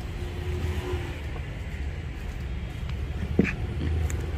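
Steady low background rumble, with one short light knock about three seconds in.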